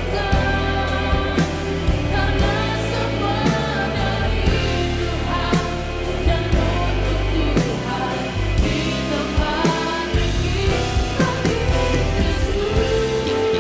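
Contemporary worship song played by a live band with a drum kit, sung over the top. The drums keep a steady beat under a full bass and the vocals.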